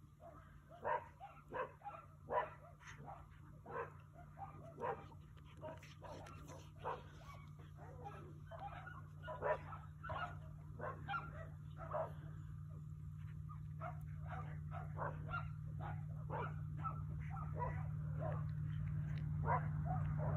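Coyotes yipping and barking as they play-fight: short sharp calls, one or two a second, with the loudest early on. A steady low vehicle engine hum grows louder underneath toward the end.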